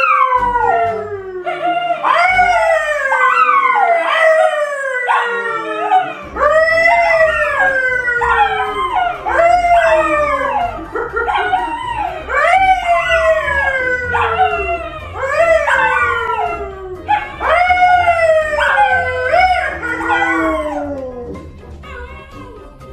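A brown poodle and a man howling together: a run of long howls, each falling in pitch, following one after another until they stop about 21 seconds in.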